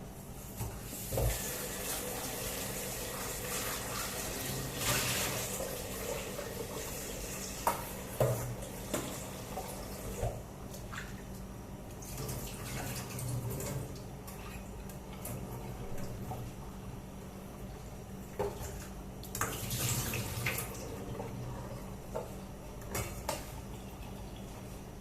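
Water running from a kitchen tap into a sink in intermittent spells, with a few knocks and clinks of pots or dishes.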